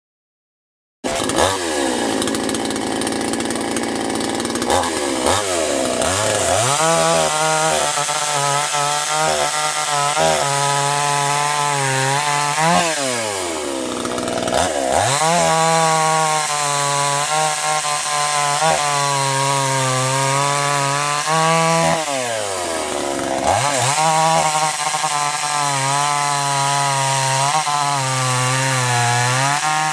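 Oxipower 58cc two-stroke chainsaw engine running at high revs, its pitch wavering as it is held, then dropping sharply and picking back up three times. The sound starts abruptly about a second in.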